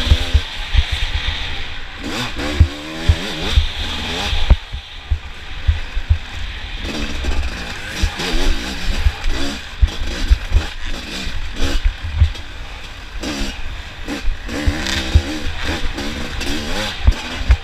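Off-road motorcycle engine revving up and down again and again as it is ridden, with frequent low thumps and knocks.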